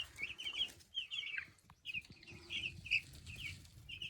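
Chickens calling: a steady chatter of short, high chirps, several a second, with a brief lull about a second and a half in.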